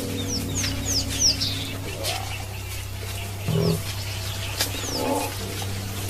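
Wild birds chirping with quick falling notes, a run of four in the first second or so and two more later on. Short low animal calls come about two, three and a half and five seconds in, over a steady low hum.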